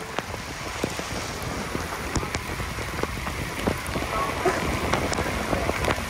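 Steady rain falling, with many irregular sharp hits of single drops over the even hiss.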